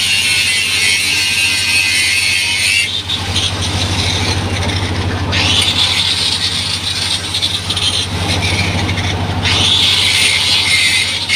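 A 4-inch angle grinder grinding a bevel, its motor humming steadily under a loud, harsh grinding hiss. The hiss eases off about three seconds in and again near the end, as the disc's contact lightens, then picks up again.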